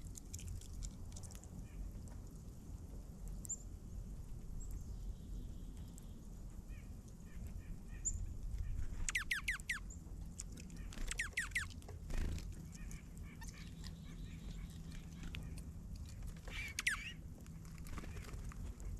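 Wild birds calling: a few faint chirps, then three clusters of quick, repeated falling calls, about halfway through, again a couple of seconds later and near the end, over a steady low rumble.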